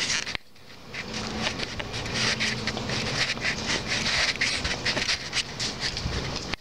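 Irregular rustling and scuffing of a handheld camera carried while walking, with a brief dip in level about half a second in.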